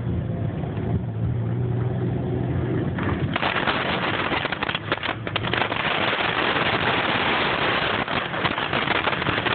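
Tornado winds roaring, a sound likened to a freight train. A dense rushing noise comes in sharply about three seconds in and stays loud. Before that there is a low steady hum under a fainter hiss.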